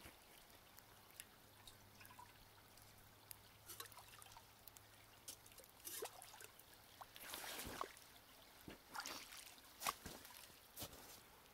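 Faint dripping water: scattered single drips and short trickles, thickest about seven to ten seconds in.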